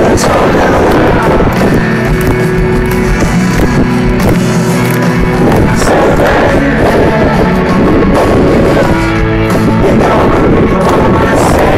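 Live rock band with electric guitars playing loudly through a large outdoor PA, heard from the middle of the crowd.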